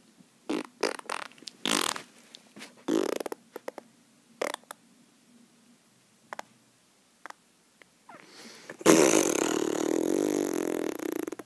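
Mouth-made sound effects for a toy battle: a string of short spitting pops, then about nine seconds in a long, loud buzzing raspberry.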